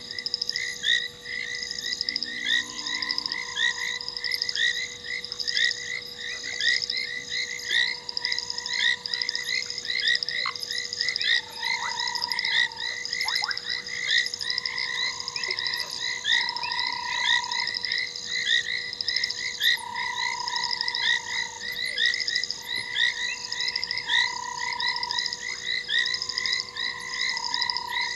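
Dense chorus of frogs calling: many short chirps repeating rapidly and overlapping at several pitches, with a lower call about a second long coming back every couple of seconds. A faint steady hum sits underneath.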